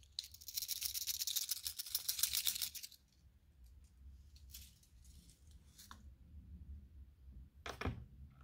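A rattle chamber inside a polyurethane-resin stick bait being shaken, a fast dense clicking that lasts about three seconds and then stops. Near the end there is one short plop as a lure goes into a tub of water.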